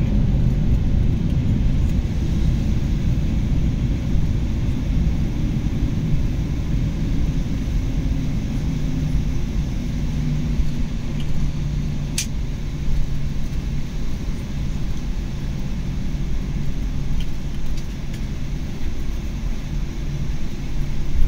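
Cabin noise inside a Boeing 747-8 rolling on the ground just after landing: a steady low rumble from the wheels and the GEnx engines at idle, easing off slowly as the aircraft slows, with a faint hum and a single click about twelve seconds in.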